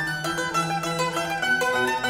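Instrumental music break: quick, separate notes from string instruments over a lower bass line.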